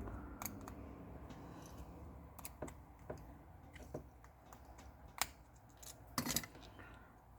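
Faint, scattered clicks and taps of small repair tools against a smartphone's internal parts as the loudspeaker module is worked loose, with the sharpest clicks a little after the middle.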